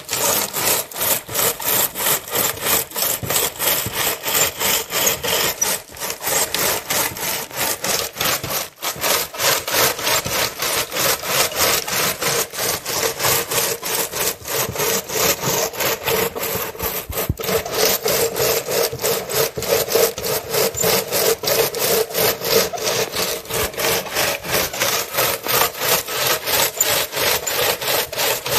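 Hand-operated groundnut shelling machine at work: its lever rocks back and forth, rubbing peanut pods against the mesh so that the shells crack and split, in a rapid, even rhythm of rasping strokes, about three to four a second.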